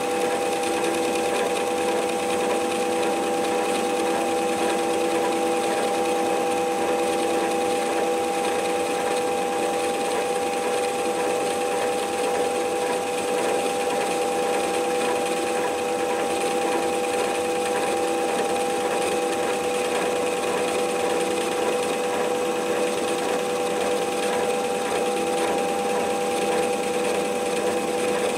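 Metal lathe running steadily under power while the tool takes a cut on a model steam engine's bearing block, its motor and gears giving a constant whine.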